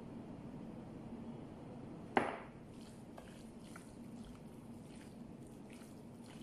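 A single sharp knock about two seconds in, as the emptied marinade jar is set down. Then bare hands mix raw meat in a marinade in a glass dish, with faint wet squelches over a steady low hum.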